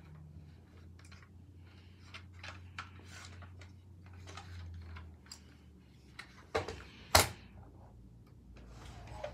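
Small clicks and rattles of a toy model Corvette C8 being turned over in the hands, then two sharp knocks about six and a half and seven seconds in as the model car is set down on a wooden tabletop, the second knock the louder.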